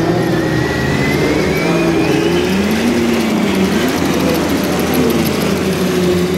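Large-scale radio-controlled model Panzer II tank driving, its drive running with a thin whine and lower tones that fall and rise in pitch as it changes speed.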